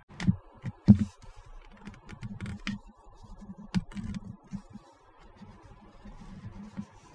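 Plastic model kit parts, the tailplane halves of an Airfix 1/48 Fairey Gannet, being handled and pressed onto the fuselage with their interlocking tabs. A scatter of sharp, light plastic clicks and soft knocks, the loudest about a second in.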